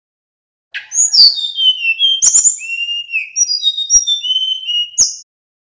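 Male sikatan bambu (bamboo flycatcher) singing a quick run of clear, high whistled notes, many of them sliding down in pitch, with three sharp clicks among them; the song starts about a second in and stops shortly before the end.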